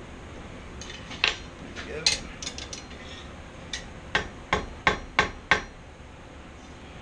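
Hand hammer striking the hot steel tines of a forged barbecue fork on an anvil to bend them: a few scattered blows and lighter taps, then a quick run of five sharp strikes in about a second and a half.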